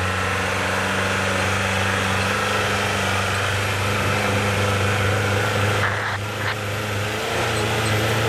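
Off-road 4x4's engine running close by at fairly steady revs, its pitch shifting slightly near the end.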